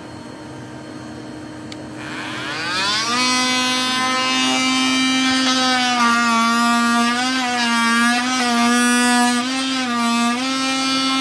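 A motor starts up about two seconds in, winds up in pitch over about a second, then runs with a steady whine, its pitch dipping briefly several times as if under changing load.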